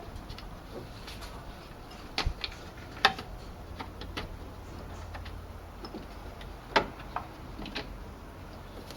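Scattered sharp clicks and knocks of hand tools and a serpentine belt being worked over engine pulleys, the loudest about three seconds in and another about two-thirds of the way through.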